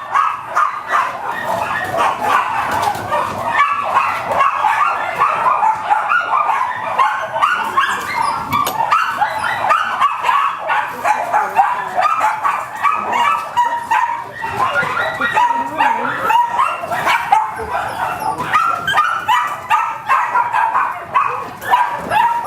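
Many dogs in a breeding kennel barking and yipping all at once, an unbroken, overlapping din.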